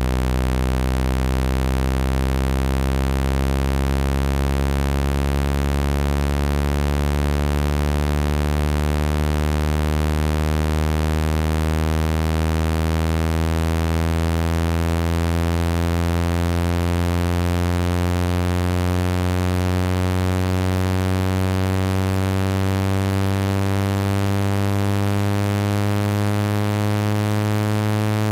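Low electronic buzzing tone rich in overtones, its pitch rising slowly and steadily. It is a speaker-cleaning tone, played at full volume to vibrate water and dust out of a phone's speaker.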